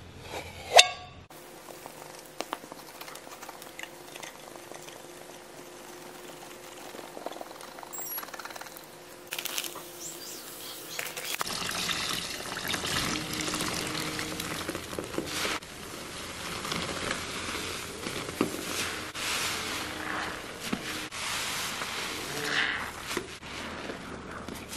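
A foil seal pulled off a canister of scouring powder, with a sharp pop about a second in. From about halfway, wet sponges are squeezed in soapy water, squelching, with crackling foam.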